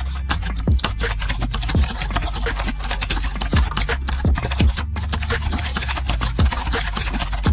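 Computer keyboard typing, a quick stream of key clicks, over background music with a steady bass-drum beat.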